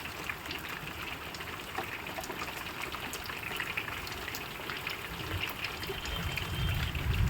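Rain falling steadily, with many separate drop hits and water trickling. A low rumble builds in the last couple of seconds.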